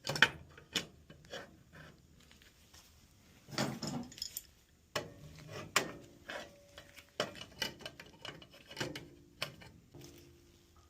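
Scattered light metal clinks, taps and rubbing from tools and fittings being handled, coming irregularly every second or so.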